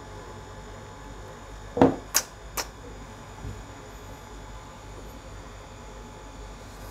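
Steady low electrical hum, broken about two seconds in by three quick clicks in a row, the first the loudest.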